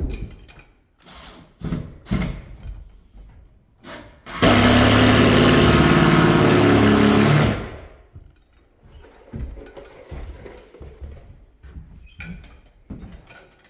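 Power drill driving a screw into the shed wall: one run of about three seconds, the motor running steadily and then stopping abruptly. Light clicks and knocks of handling before and after.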